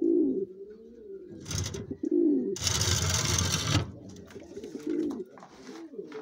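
Domestic pigeons cooing again and again in the loft, low coos that rise and fall in pitch. A loud rustling noise lasting about a second comes a little before the middle.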